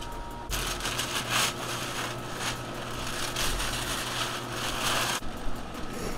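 Brown masking paper being pulled off a truck grille and crumpled, a dense crinkling rustle that starts about half a second in and stops about a second before the end.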